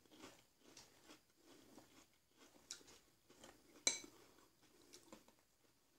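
Metal spoon clinking and scraping in a ceramic bowl of cereal and milk, faint, with a sharper clink about four seconds in.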